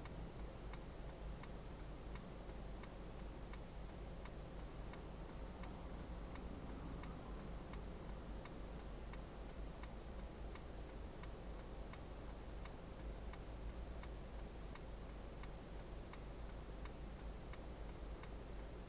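Car's turn-signal indicator clicking at an even, steady rate while the car waits at a red light, over a low steady hum.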